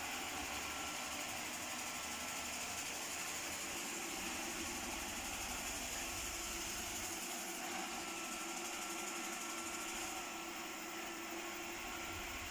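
Xiaomi E10 robot vacuum running, a steady whirring hiss with a faint hum.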